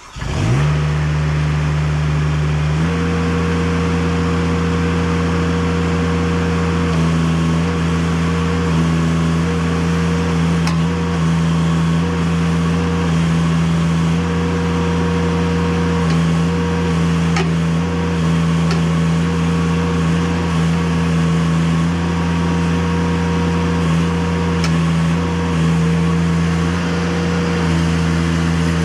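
Liquid-cooled Kubota diesel engine of a TPM 20K mini excavator coming up to speed and running steadily, its pitch stepping up a little about three seconds in. A few faint ticks over the engine.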